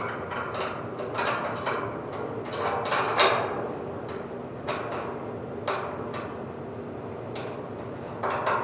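Irregular metal clicks and knocks from hand tools working on the hood hinge bolts, the loudest a knock about three seconds in, over a steady low hum.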